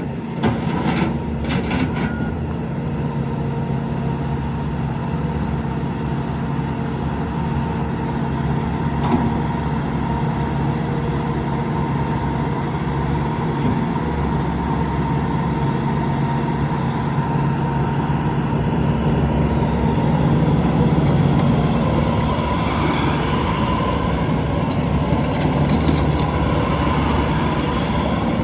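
Bobcat T740 skid steer loader's diesel engine running steadily, a continuous low engine drone.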